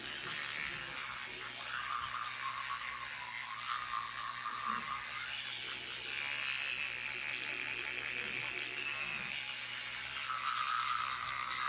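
Electric toothbrush running in the mouth, brushing teeth with toothpaste: a steady motor hum under a scrubbing sound that shifts in pitch as the brush moves around the teeth.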